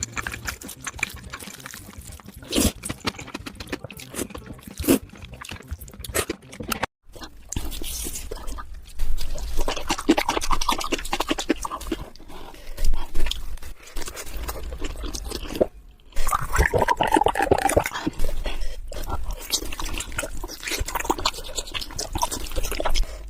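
Sped-up close-mic eating sounds: rapid wet chewing, slurping and mouth smacks. The sound breaks off briefly twice.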